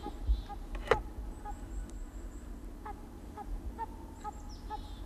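A break-action shotgun snaps shut with one sharp click about a second in. A hound barks at a distance in short, evenly spaced barks, about two a second, as it drives game, with small birds chirping faintly.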